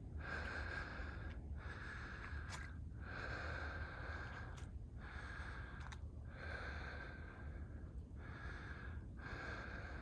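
A person breathing hard, winded from a brisk jog up stairs: heavy in-and-out breaths close to the microphone, about one every second and a half, over a steady low rumble.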